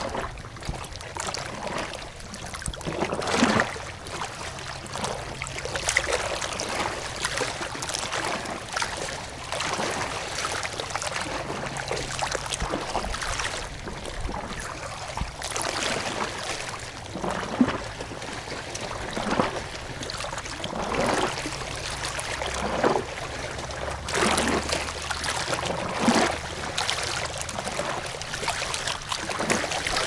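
Running water gurgling and splashing continuously, with irregular louder gurgles every second or two.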